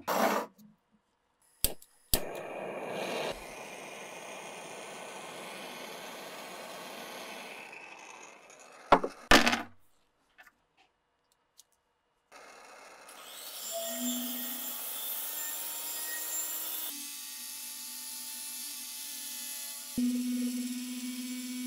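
A few sharp metal clacks and several seconds of steady scraping. Then a rotary tool spins a brass wire cup brush against the steel axe blade, a steady motor hum with a hiss from the bristles, shifting pitch a couple of times near the end.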